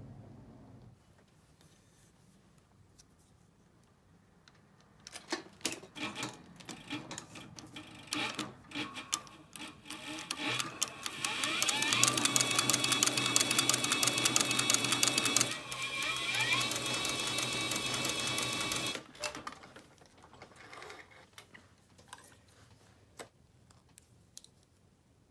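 Heavy-duty cylinder-arm leather sewing machine stitching through a thick leather strap: a steady fast clatter of needle and hook lasting about eight seconds, with the motor's whine rising twice as it speeds up, then stopping. Scattered clicks and knocks from handling the leather come before it, and fainter ones after it.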